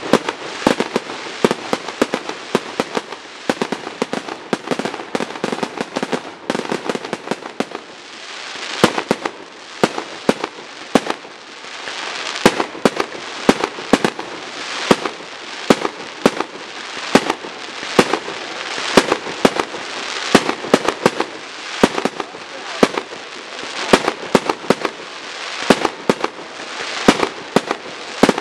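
Aerial fireworks going off in rapid succession: a dense run of sharp bangs and crackles that thins briefly about seven seconds in, then settles into a steadier beat of roughly one loud bang a second.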